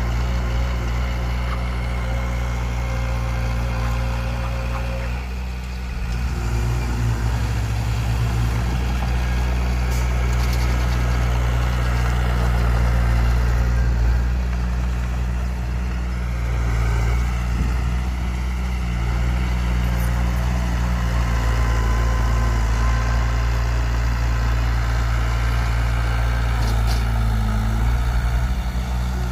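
Heavy diesel engines of earth-moving machinery running, a bulldozer loading a dump truck. A steady, deep engine hum whose note shifts about six seconds in and again near the end.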